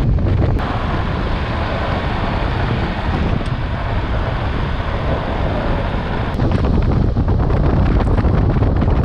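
Pickup truck driving on a dirt track, heard from a camera mounted on its body: heavy wind buffeting on the microphone over a low road and tyre rumble. From about six seconds in, many sharp ticks of grit and small stones join it.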